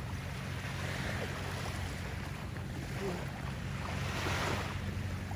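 Small waves lapping and washing up a sandy shore, one wash swelling about four seconds in, over a steady low rumble.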